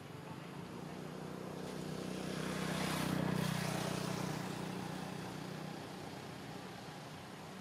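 A motor vehicle passing by: its engine hum grows louder to a peak about three seconds in, then fades as the pitch drops slightly.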